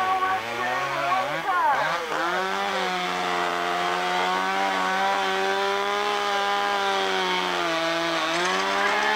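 Chainsaw running hard while cutting wood shelving. Its pitch sags and wavers in the first two seconds as it bites in, holds steady for most of the cut, and sags briefly again near the end.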